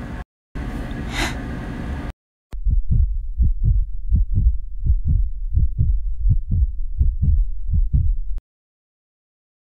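Heartbeat sound effect: a steady run of low thumps in lub-dub pairs, about one and a half beats a second, which stops abruptly after about six seconds. It follows a short stretch of steady noise.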